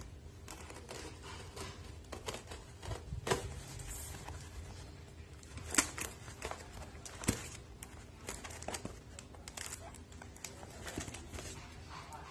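A yellow mailer envelope being slit along its edge with a razor blade and torn open by hand: scattered crinkling, tearing and sharp scratchy clicks, the two loudest about six and seven seconds in.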